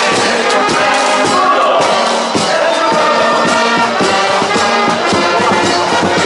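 A carnival marching band's brass section playing loudly, trombones and trumpets carrying the tune.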